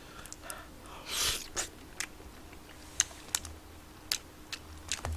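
A few light, scattered clicks, with a short breathy hiss about a second in.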